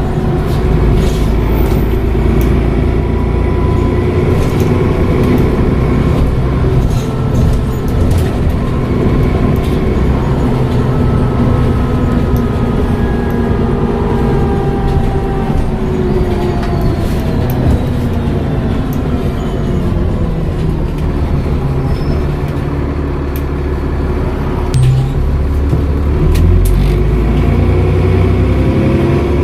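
Dennis Trident double-decker bus with a Voith gearbox under way: the engine runs steadily with a turbo whistle and whines. The whines fall in pitch around the middle as the bus slows, then rise again near the end as it pulls away.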